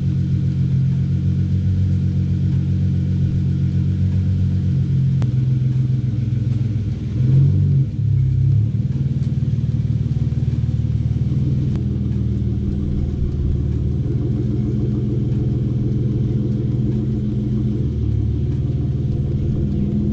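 Straight-piped Hyundai Genesis Coupe 3.8 V6 exhaust idling with a steady deep rumble, with a short throttle blip about seven seconds in.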